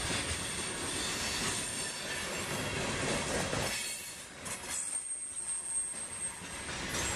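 Freight train boxcars rolling past, their wheels running on the rails with a steady rumble and clatter. A thin, high wheel squeal rings out twice. The noise dips briefly about four seconds in.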